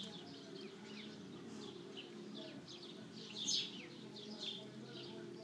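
Small birds chirping: many short, quick chirps falling in pitch, with a louder cluster about three and a half seconds in, over a faint steady low hum.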